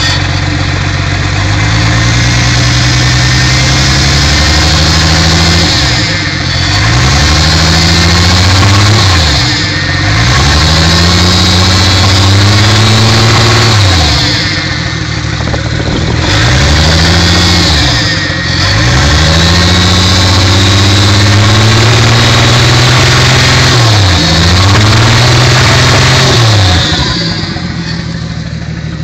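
Toyota 7M-GTE turbocharged inline-six revved and held at raised revs, dipping and climbing back about five times, then dropping to idle near the end. The engine has rod knock after almost 100k miles.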